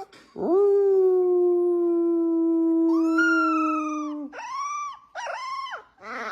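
A dog howling: one long, steady howl of about four seconds, then three short howls that each rise and fall in pitch.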